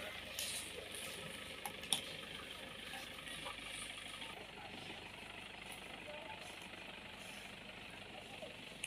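Toyota Hilux D-4D pickup's diesel engine idling faintly and steadily, with a few light clicks in the first two seconds.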